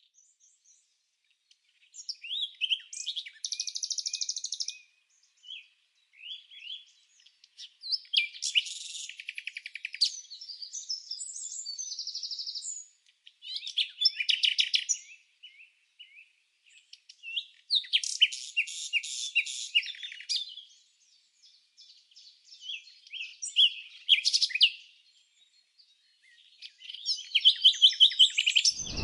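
A songbird singing a series of high-pitched song phrases, each made of quick chirps and rapid trills, with short pauses between them.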